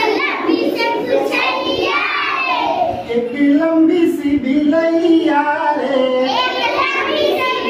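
A class of young schoolchildren singing a Hindi children's song together.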